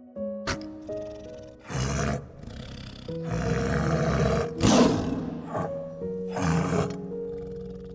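Tiger growling and roaring in several rough bursts, the loudest about five seconds in, over soft background music.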